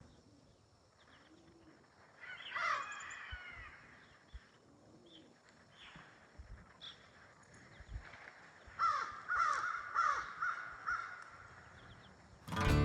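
Harsh bird calls outdoors: a loud cluster about two seconds in and a run of repeated calls from about nine to eleven seconds. Music starts at the very end.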